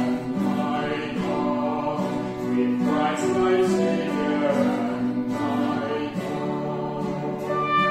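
A man and a woman singing a hymn, accompanied by acoustic guitar, digital piano and a woodwind. Near the end the singing stops and the instruments carry on alone.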